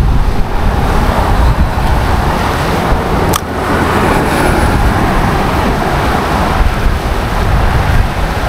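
Steady rush of traffic on the highway bridge alongside, mixed with wind buffeting the microphone. One sharp click comes about three and a half seconds in.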